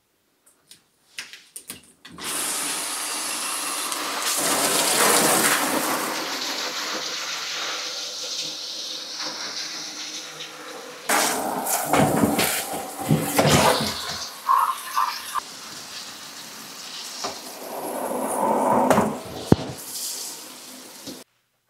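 A few light knocks, then a handheld shower head sprays water onto a metal honeycomb laser bed in a plastic tote, rinsing degreaser and grease out of the honeycomb. The spray starts about two seconds in. Its splashing changes as the stream moves over the mesh and into the tote, and it cuts off suddenly near the end.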